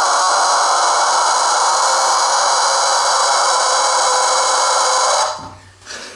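Rubber screaming chicken toy blown through an attached straw, giving one long, loud scream that stops about five seconds in.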